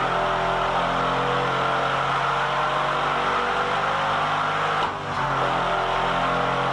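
Mercedes-AMG 5.5-litre V8 running hard under load on an engine dynamometer, with a steady, even engine note. About five seconds in the note dips briefly, then picks straight up again.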